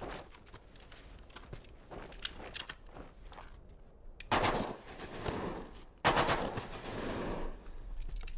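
Two rifle shots from a film soundtrack, under two seconds apart, each a sharp crack that trails off over about a second. Before them come faint crunches and clicks of feet on gravel.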